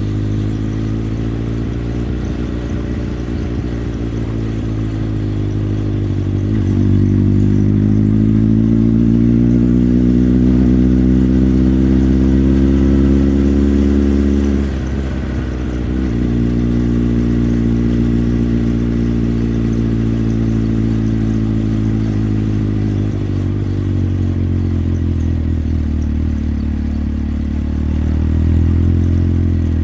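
Motorcycle engine running under way, its pitch rising as the rider opens the throttle, then dropping briefly about halfway through, as at a gear change or a closed throttle, before picking up again and holding fairly steady.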